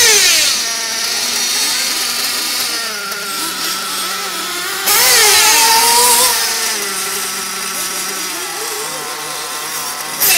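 Radio-controlled off-road racing car's motor, its high whine repeatedly rising and falling in pitch as it speeds up and slows around the track, louder for a moment about halfway through.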